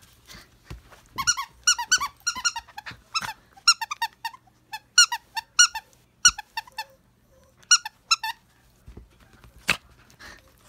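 Rubber squeaky toy squeaked in quick clusters of two to five as a small black dog chews it, with a single knock near the end.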